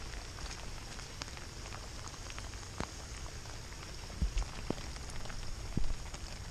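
Steady rain falling, with individual drops tapping close by; a few louder taps come about three to six seconds in.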